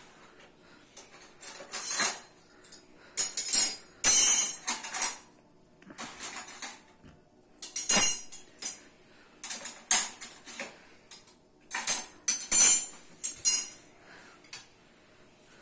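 Stainless steel spoons and plates clattering as spoons are laid out on steel plates: a string of irregular, sharp metallic clinks, the loudest about four and eight seconds in.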